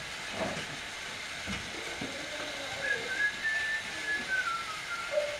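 Someone whistling a few held notes that step up and then fall away, over a steady low hiss.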